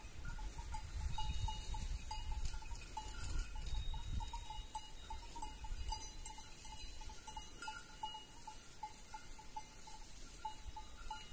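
Small bells on grazing goats clinking irregularly, a few strikes a second, each a short ringing tone. A low rumble sits under them for the first four seconds or so.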